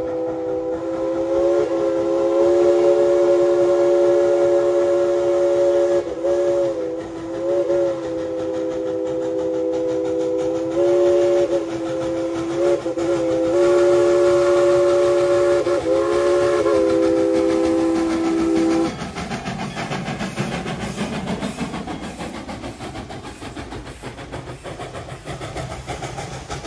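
Steam locomotive's chime whistle blowing a string of long blasts, a three-note chord with short breaks between them. About two-thirds of the way in the whistle stops and the rumble and clatter of the train's passenger cars rolling past take over.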